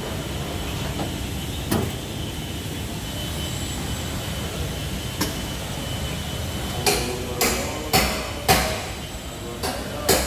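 Hammer striking car body sheet metal during panel-beating dent repair: two single knocks, then about six ringing blows in quick succession near the end, over a steady background noise.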